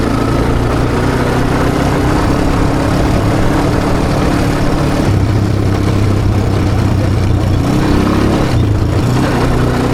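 ATV (quad bike) engine running steadily as the quad is ridden, with small shifts in its note about five and eight seconds in.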